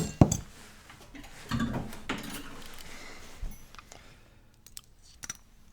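Small metal tools being handled: hex wrenches click and rattle as they are picked through and tried in a tiny Allen screw. A sharp click at the start, a scraping, rustling stretch in the middle, then a few light clicks.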